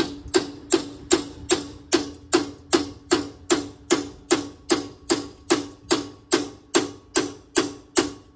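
Hammer driving a steel chisel in steady, even blows, about two and a half a second, each a sharp metallic strike with a short ring. The chisel is cutting into an exhaust pipe to split off a muffler rusted onto it.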